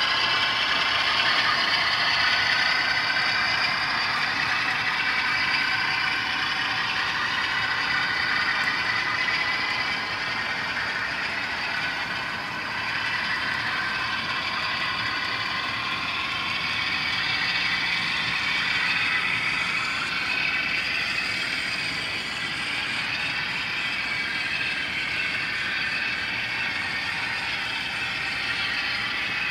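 Model train running on the layout: the locomotive's motor and gears whir steadily as it rolls along the track.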